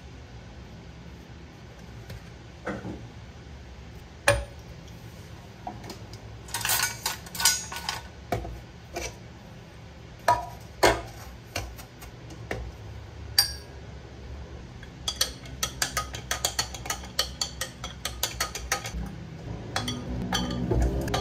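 A spoon and glassware clinking on a kitchen counter while iced coffee is made. The clinks come singly and in small clusters, then as a fast run for a few seconds past the middle.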